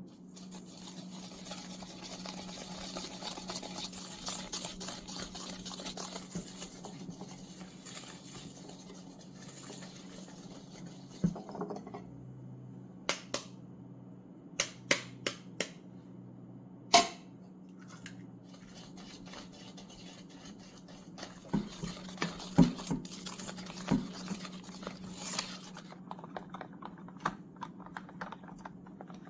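Baking prep in a stainless steel mixing bowl: a silicone spatula works pink cake mix with a continuous rustling scrape for about the first ten seconds. Then comes a scattering of sharp taps and clacks of utensils against the bowl and tools, over a low steady hum.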